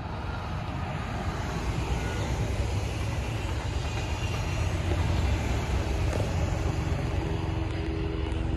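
Double-deck Transilien electric commuter train passing close by: a rumble of wheels on rails that grows louder to a peak about halfway through. A steady hum comes in over the rumble in the last couple of seconds.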